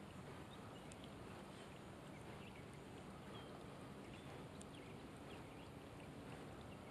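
Faint light rain falling on a pond, a soft steady hiss with scattered tiny irregular drop ticks.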